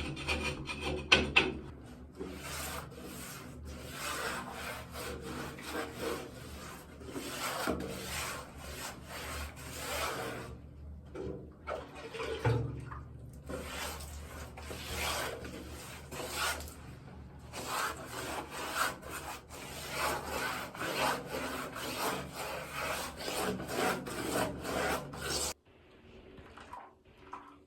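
Repeated scraping and rubbing strokes of a cement-and-water mix being worked by hand, stopping abruptly near the end.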